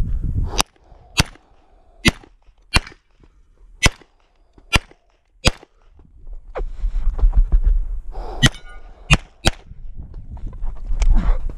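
Handgun shooting, about ten sharp shots, several of them in quick pairs about half a second apart. There is a pause with rustling movement noise in the middle before the shots resume.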